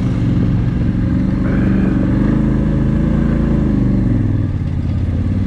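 ATV engine running under way as the quad is ridden along a trail, its note rising a little and then easing off about four seconds in.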